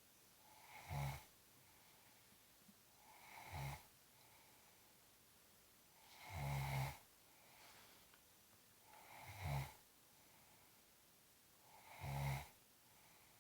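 Rhythmic snoring: five snores a little under three seconds apart, each swelling to a short, loud buzzy rasp and then dropping back to quiet.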